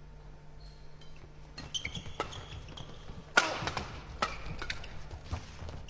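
Badminton doubles rally: rackets striking the shuttlecock in a quick exchange of sharp hits, starting about a second and a half in, the loudest hit near the middle.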